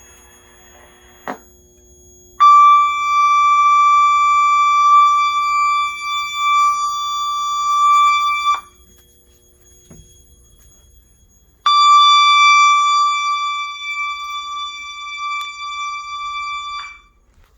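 Voice-evacuation fire alarm panel sounding its alert tone through a speaker: a steady high tone held for about six seconds. It cuts out for about three seconds, then comes back for about five more, the tone cutting out partway through being a fault the owner has not yet solved. A short click sounds about a second in.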